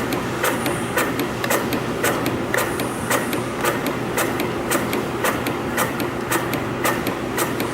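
YHM CF-310 CNC spring coiling machine running as it forms conical springs from 0.4 mm wire: a sharp click about twice a second over a steady mechanical hum.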